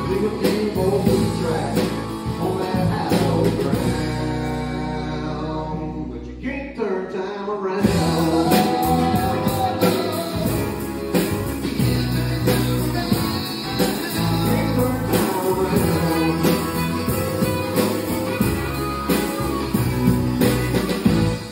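Live Americana band playing: strummed acoustic guitar, electric guitar, bass and drums, with harmonica. About six seconds in the bass and drums drop out for a moment before the full band comes back in.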